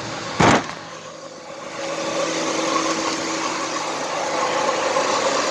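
1998 Ford Mustang's engine idling, with one sharp, loud thump about half a second in; from about two seconds in the engine hum is louder and steady.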